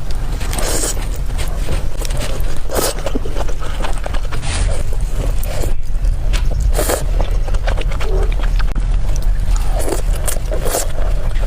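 Close-miked eating of rice noodles: chewing and slurping in irregular bursts, over a steady low hum.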